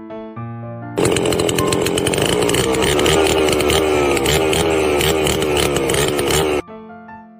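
Loud power-tool motor running for about five and a half seconds, its pitch slowly falling, then cutting off abruptly; background music plays before and after it.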